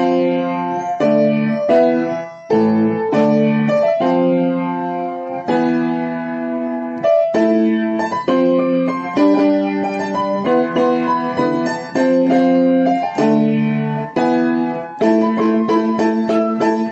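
Background music: a keyboard instrument playing a steady run of chords, which change about once or twice a second.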